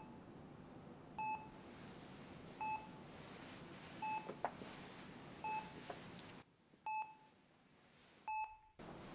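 Hospital patient monitor beeping steadily, one short pitched beep about every one and a half seconds, over faint room hiss.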